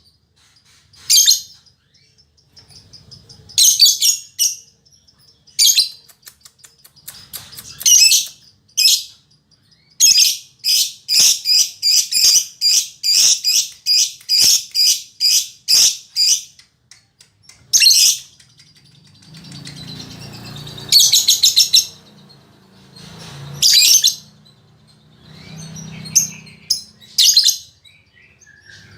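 Female lovebird chirping in sharp, high-pitched, loud bursts, with a rapid run of about two calls a second from about ten seconds in.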